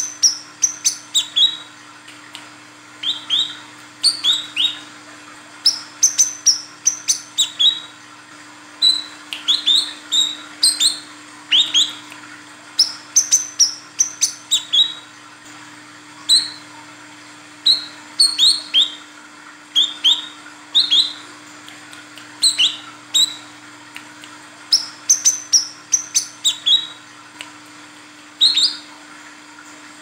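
Female brown-throated sunbird (kolibri kelapa) calling: short, sharp, high chirps in quick groups of two to four, repeated every second or two.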